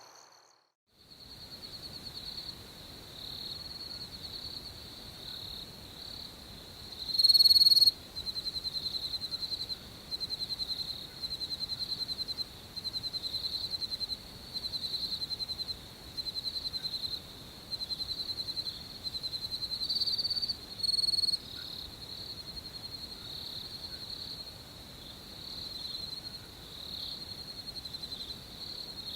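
Crickets chirping: a high-pitched trill pulsing in chirps about once a second, with one louder, closer chirp about seven seconds in. It starts after a second of silence.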